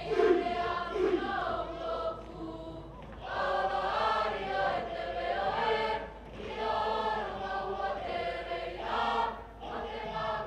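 A Cook Islands group choir singing together, the women's voices to the fore, in sung phrases broken by short pauses.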